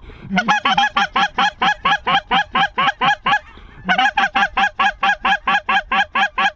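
Rapid, evenly paced goose honks, about seven a second, in two long runs with a short break about three and a half seconds in.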